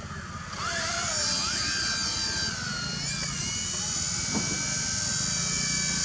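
F03 RC helicopter's electric motors spinning up about half a second in, their pitch gliding as the rotors come up to speed, then a steady high whine with several wavering tones as it runs at flying speed.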